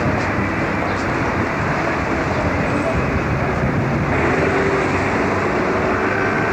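Outdoor city ambience: a steady wash of road traffic noise, with people's voices faintly mixed in.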